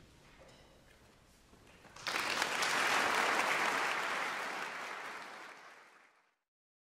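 Audience applause breaks out suddenly after a hushed pause of about two seconds that follows the choir's final chord. It tapers off and is cut off shortly before the end.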